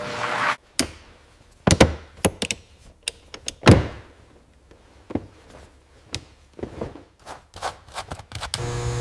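A series of irregular knocks, clicks and thunks, the loudest two about two seconds apart, like tools and parts being handled in a workshop; near the end a steady hum with hiss begins.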